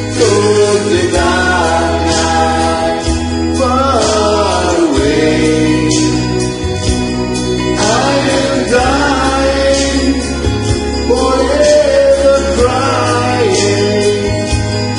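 Karaoke singing over a backing track with sustained bass and a steady beat, the voice holding long gliding notes.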